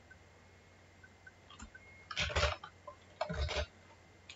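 Computer keyboard and mouse clicks: three short clusters of sharp taps over a faint steady hum.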